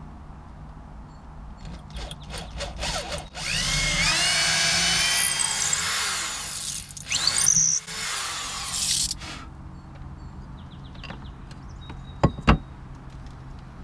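Corded electric drill boring into a wooden frame: a few short trigger pulses, then the motor running for about six seconds as the bit cuts in, its pitch rising as it spins up. Two sharp knocks near the end.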